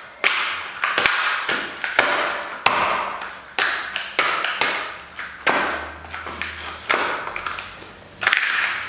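A high-heeled pump pressing down on and rolling a plastic toy car over a gritty, sand-strewn floor: a string of sharp taps and crackles, roughly one a second, each fading away after it.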